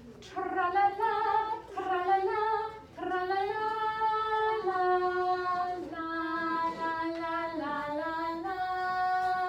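A woman's and a child's voices singing a melody on "la" without accompaniment, with short notes at first and longer held notes after about three seconds.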